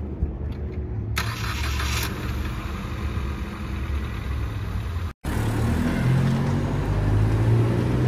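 Car engine starting and running, with a short hissy burst as it catches. A sudden brief dropout comes about five seconds in, then the engine revs and pulls away, growing louder.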